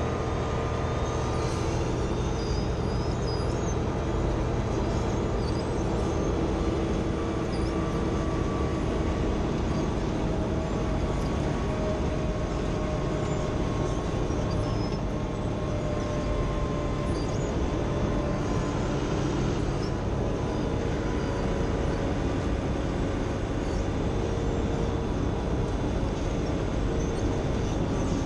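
Wirtgen asphalt milling machine running steadily under load, its diesel engine and cutting drum grinding off asphalt as it moves forward, a continuous loud grinding with steady engine tones.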